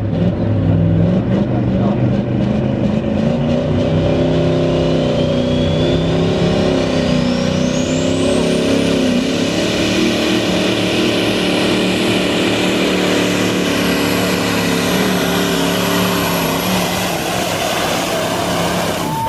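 Hot rod semi truck's diesel engine running at full power, pulling the sled down a dirt track. A high turbo whistle rises steeply from about four seconds in and then holds high.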